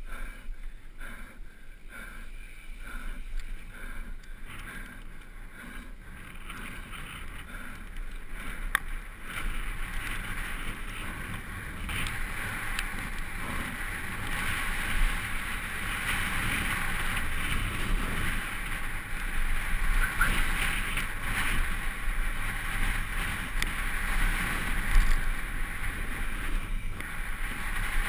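Wind rushing over a helmet-mounted camera's microphone, with the rumble and rattle of a downhill mountain bike's tyres and frame. It grows louder after about nine seconds as the bike comes onto cobblestones and picks up speed.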